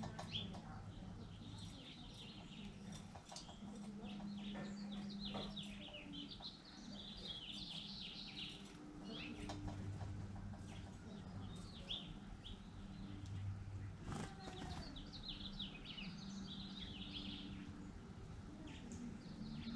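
Several small birds chirping and calling, with short overlapping calls throughout.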